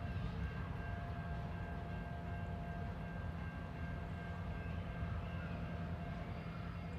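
Diesel locomotive engine running with a low steady rumble, a few faint steady whining tones above it.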